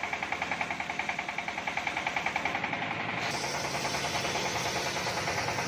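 Homemade circular saw bench running while a teak plank is fed through it, with a regular pulsing beat about seven times a second. About three seconds in, the pulsing gives way to a steadier, brighter noise.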